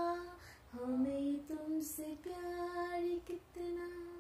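A woman singing a Hindi film song with no accompaniment. A held note ends about half a second in, then she sings a short melodic phrase that fades out near the end.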